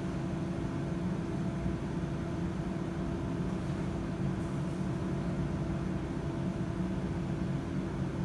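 Steady hum and rush of a plating-line fume extraction blower drawing vapour off the tanks, with a constant low drone and a few steady tones.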